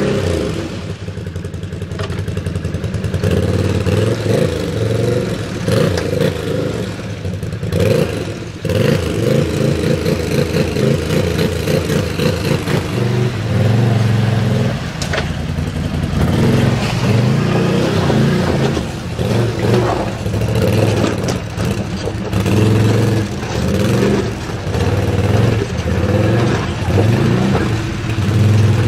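Can-Am ATV engine revving up and down unevenly as the quad churns through a muddy creek, with water splashing around the wheels.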